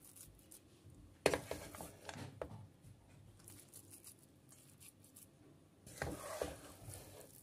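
Spoon scraping thick, crumbly halwa from the pan onto a plate, with a sharp clink about a second in and more scraping near the end.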